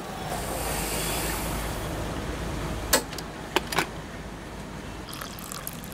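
Metal clanging from aluminium tea kettles: three sharp clanks about three seconds in, over a steady background hiss and hum.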